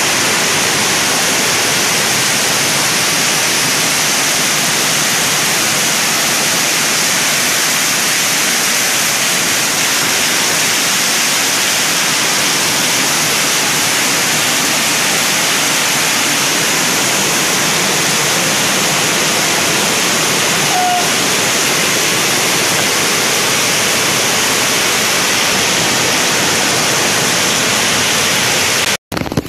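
Floodwater rushing in a torrent, a loud steady noise without a break.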